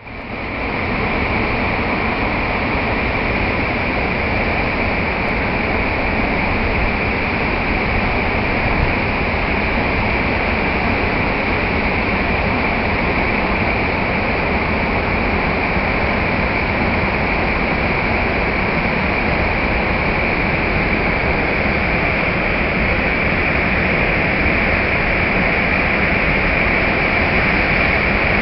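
Floodwater pouring over a stone weir and churning in white water at its foot: a loud, steady rush of falling water.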